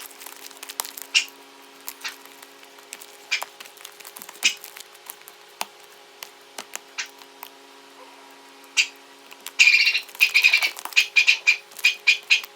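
Homemade slime being squished and worked by hand: scattered wet clicks and pops, then a quick run of squelching pops near the end.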